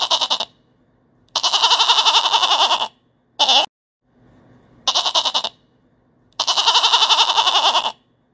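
Goat bleating: five loud, quavering calls split by short silences, in two alike runs, each a short bleat followed by a long one of about a second and a half.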